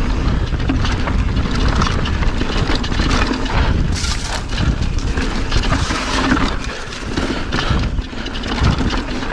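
Pivot Firebird 29 mountain bike riding down a rocky dirt trail: tyres rolling over loose dirt and stones with a steady run of knocks and rattles from the bike, under heavy wind rumble on the microphone.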